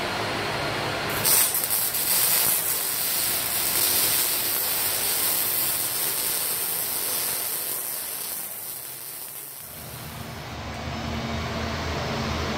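Welding on a car's steel exhaust pipe: a hiss with a crackle that starts about a second in and dies away about ten seconds in. A steady low hum follows near the end.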